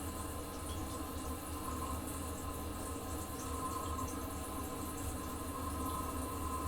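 Toilet cistern refilling after a flush in a small bathroom: water runs steadily through the fill valve with a steady hissing whine.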